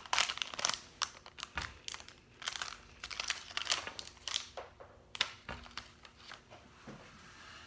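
Crinkling and clicking of handled plastic: a small toy doll's accessory and its plastic wrapping being fiddled with, busy for about five seconds and then sparser.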